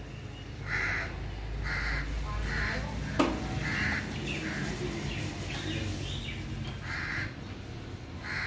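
Crows cawing, short harsh calls repeated about once a second, with a single sharp click about three seconds in.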